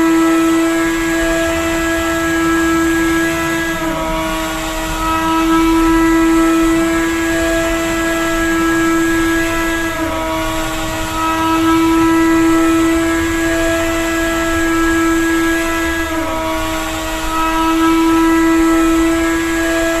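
Drone propellers whining in flight: a steady pitched hum with many overtones that dips briefly in pitch three times, about six seconds apart.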